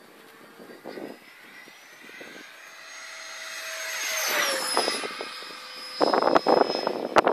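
A 70mm ten-blade electric ducted fan, driven by a BL-32 motor in an LX F-22 Raptor RC jet, makes a high whine that grows louder as the jet approaches. The pitch drops as it passes by, about four and a half seconds in. Near the end a burst of louder, rough noise covers it.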